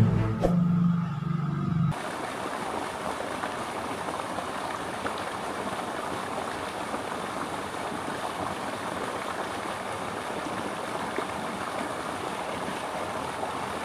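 Shallow river water flowing and rippling over stones, a steady even rush. It is preceded by the tail of loud intro music with a low sustained tone, which cuts off sharply about two seconds in.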